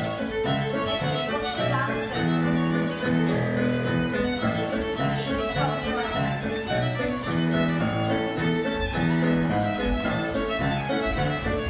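Scottish country dance music led by fiddle, a tune played with a steady beat.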